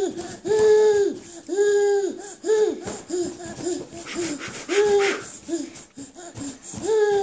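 A toddler laughing in a string of short, steady-pitched "ha" sounds, some held about half a second and spaced about a second apart, with quicker, shorter ones in between.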